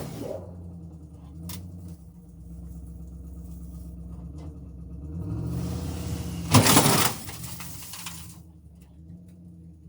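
A car engine idles and is revved. About six and a half seconds in, the rev peaks and a loud rushing hiss lasts about two seconds before the engine settles back. At the start, the tail of an earlier similar rush dies away.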